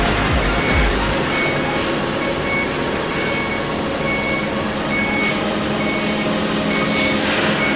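Electronic warning beeper on a heavy truck sounding short even beeps, a little more than one a second, over steady running noise.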